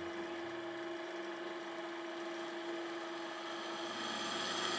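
Drill press running and drilling into a small metal bar held on its table, a steady machine whine with an unchanging pitch that grows a little louder near the end.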